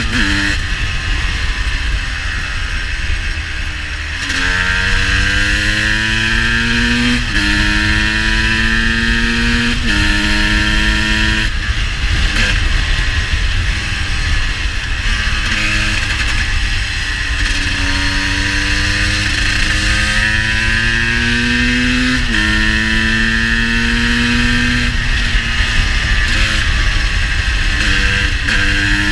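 GasGas EC 250 two-stroke supermoto engine running hard while the bike accelerates through the gears: the note climbs steadily, then drops sharply at each upshift, in two runs of several gears each, over a low wind rumble. The uploader says the bike is running a little rich.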